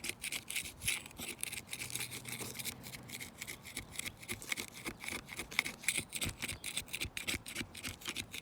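Rapid scratchy rubbing or scraping strokes against a surface, several a second, continuing throughout.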